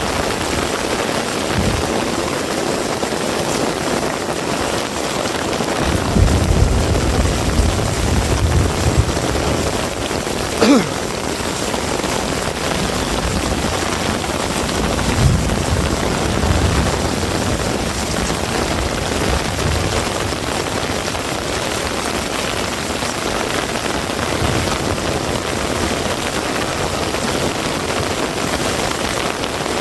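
Heavy rain falling steadily, a dense even hiss, with low rumbling swells twice, about six seconds in and again around fifteen seconds. A brief sweeping squeak cuts through about eleven seconds in.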